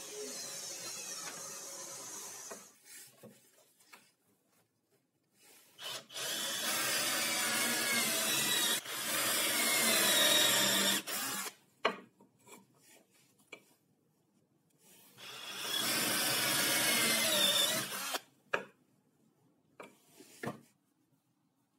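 Handheld power drill boring holes into plywood, in two long runs with the motor pitch wavering as the bit bites. A few short knocks of wood fall between and after the runs, and a quieter steady noise fills the first couple of seconds.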